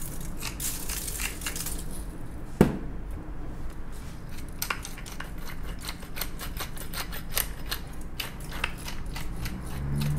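Hand-twisted salt and pepper grinders grinding over food: a dry crunching with many quick sharp clicks. A single sharp knock about two and a half seconds in.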